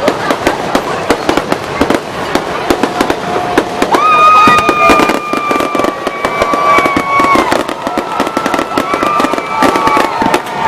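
Fireworks display: a dense, rapid run of pops and crackles. A long steady whistle starts about four seconds in and lasts about three seconds, and fainter whistles follow near the end.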